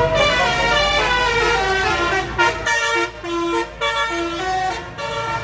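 Tour bus's basuri telolet horn, a set of multi-tone air horns, playing a stepping melody of several notes at once, over the low running of the bus engine.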